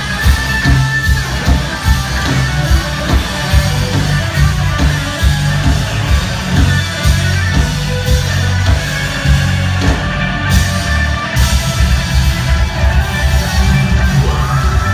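Loud rock music with electric guitar and a heavy pulsing bass beat.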